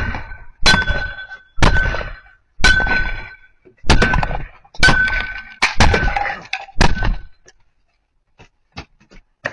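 Heavy blows striking a doorbell camera, picked up by the camera itself: a thunk with a short metallic ring, repeated about once a second, stopping about seven seconds in.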